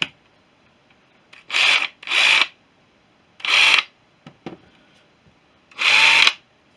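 Parkside 20 V cordless impact wrench triggered in four short bursts, its motor spinning up for about half a second and stopping each time. A sharp click comes at the start.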